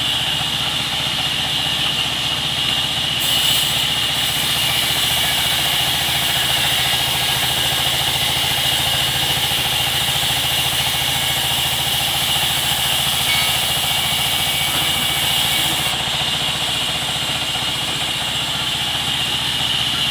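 Sawmill machinery running steadily, with a constant high whine and a low hum. A brighter hiss joins about three seconds in and drops away about sixteen seconds in.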